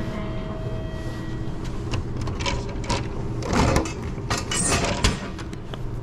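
Drinks vending machine dispensing a plastic bottle: a series of clunks and knocks as the bottle drops and is pulled out through the flap of the dispensing slot, the sharpest about five seconds in. A steady low hum runs underneath.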